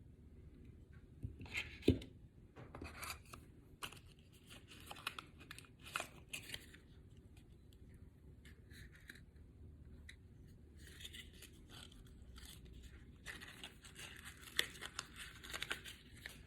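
Packaging from a phone box being torn and handled: irregular tearing and rustling, with a sharp click about two seconds in. After a quieter stretch in the middle, denser rustling follows.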